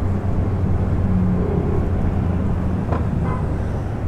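Yamaha NMAX scooter engine running steadily while riding, with a low hum under steady wind and road noise.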